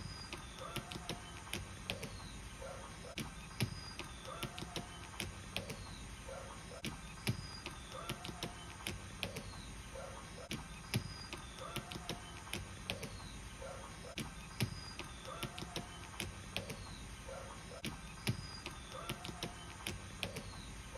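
A kitten's claws scratching and catching on a fabric suitcase: a run of short scratches and clicks, with a louder group about every four seconds.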